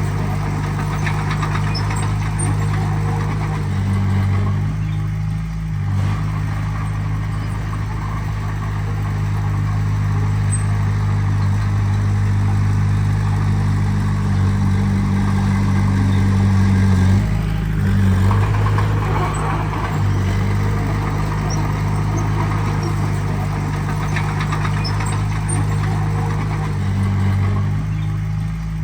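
Heavy machine's diesel engine running steadily, its engine speed changing a few times: around five seconds in, near eighteen seconds and near the end.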